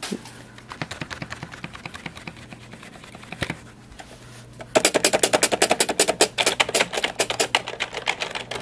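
Computer keyboard typing compared back to back: fast, soft key clicks from the quiet Kensington Pro Fit wireless keyboard, then about five seconds in a much louder, rapid clatter of keystrokes from a noisier keyboard.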